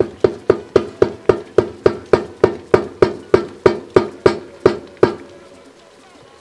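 Wooden spatula knocking against the side of an aluminium pot as it stirs thick pepper sauce: rapid, even knocks with a short ring, about four a second, stopping about five seconds in.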